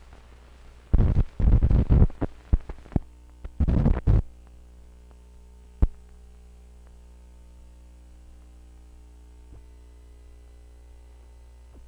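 Steady electrical hum with many overtones on an old film's soundtrack as the countdown leader runs. Loud bursts of crackling noise come between about one and four seconds in, then a single sharp pop about six seconds in and a few faint ticks later.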